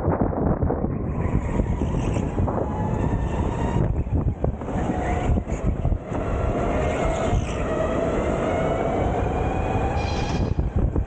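Onboard running sound of a Sodi electric go-kart at speed: the motor's whine rises gradually in pitch through the middle, over a heavy steady rumble.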